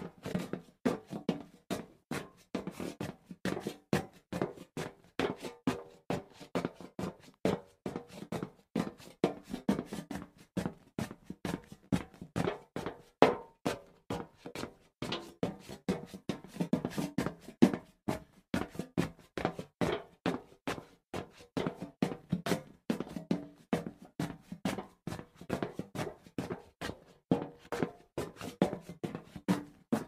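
Footsteps walking on a hollow metal surface: a steady run of sharp, evenly paced clanks, each with a short hollow ring.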